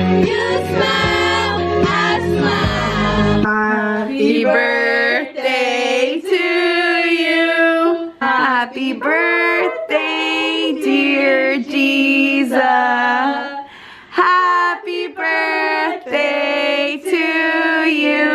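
Voices singing along to a pop song with a heavy bass beat, which cuts off about three and a half seconds in; after that, voices sing on without any accompaniment.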